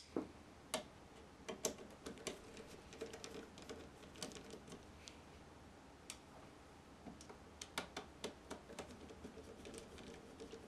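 Faint, irregular small clicks and ticks from a screwdriver with interchangeable tips being handled and set into the small screws along the metal side edge of an Apple Cinema Display.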